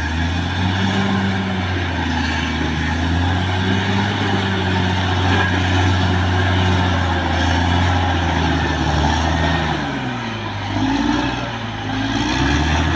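Caterpillar D6R XL bulldozer's diesel engine running steadily under load. About ten seconds in, its note sags and then climbs back up.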